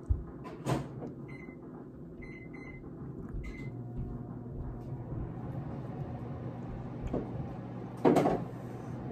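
Microwave oven being started: a door click, about four short keypad beeps, then a steady hum as it runs, likely reheating food. A brief loud noise near the end.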